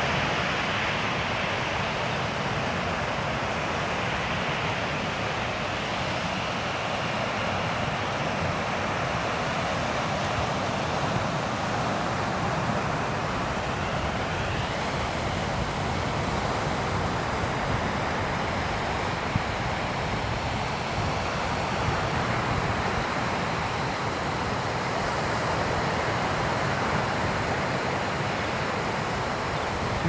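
Ocean surf breaking and washing up a sandy beach, a steady wash of noise, with wind rumbling on the microphone.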